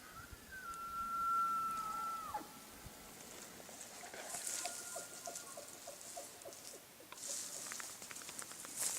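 Elk bugle: a high whistling note held for about two seconds, then dropping sharply, followed by a quick series of short grunts. Brush rustles and crackles around the middle and near the end.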